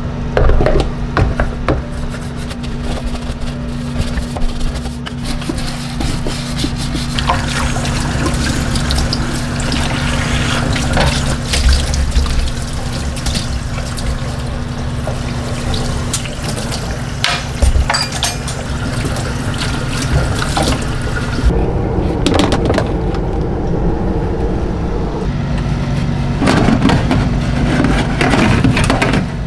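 Water running from a pull-out kitchen faucet into a stainless steel sink as it is rinsed, after some brush scrubbing at the start, with small clinks and knocks of the sink fittings near the end. Background music plays under it.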